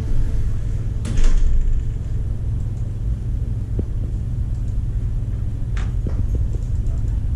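Steady low rumble with a short knock or clunk about a second in and another near six seconds.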